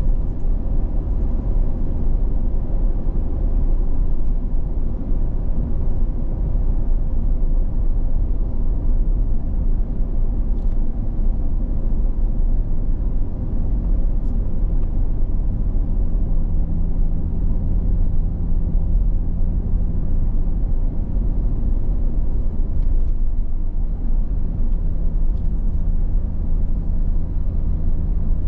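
Steady low rumble of a car driving at road speed, heard from inside the cab: tyre and engine noise with no breaks. A faint hum rises out of the rumble about halfway through.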